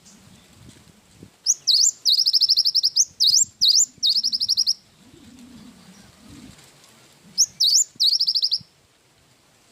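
Cinereous tit (gelatik batu) singing in loud, high bursts: each phrase opens with quick upswept whistles and runs into a fast chattering train of repeated notes. A longer broken phrase comes about a second and a half in, and a shorter one follows a few seconds later.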